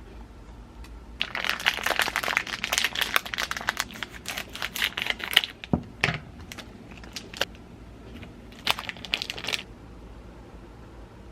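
Crinkling and crumpling of packaging being handled: a dense run of crackles lasting about four seconds, starting about a second in, then a few scattered crackles and a short second burst near the end.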